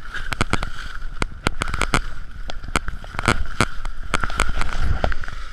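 Edges scraping and chattering over snow at speed, with wind rushing over the moving camera's microphone and many sharp clatters and knocks as it jolts along.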